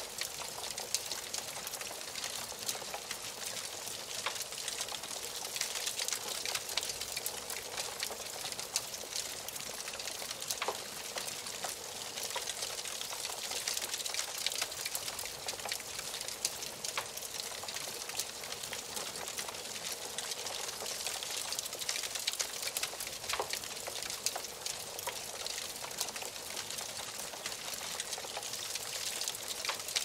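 Wood fire burning in a fireplace, crackling steadily: a soft hiss with frequent small pops and snaps and a few louder snaps scattered through.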